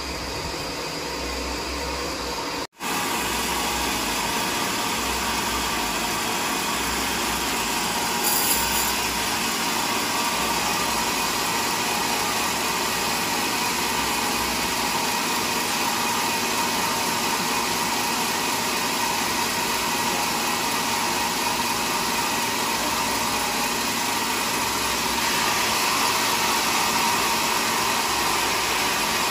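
Large sawmill band saw running steadily with a mechanical hum, its blade not yet in the wood. The sound cuts out for an instant about three seconds in.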